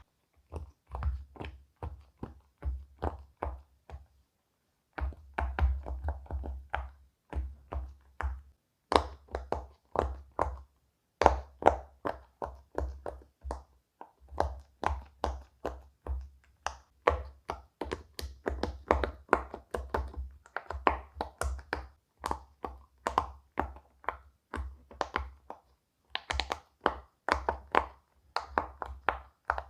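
Silicone pop-it fidget toy bubbles being pressed one after another: a quick run of soft pops, several a second, broken by a couple of short pauses.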